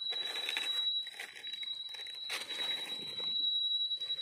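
Dry fallen leaves rustling and crackling as a hand works through the leaf litter, in irregular spells, with a thin steady high-pitched tone behind.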